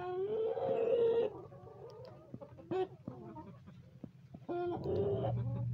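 Backyard hens calling and clucking: one long drawn-out call at the start, then scattered short calls and clucks, with a cluster of calls near the end. A low steady hum comes in near the end.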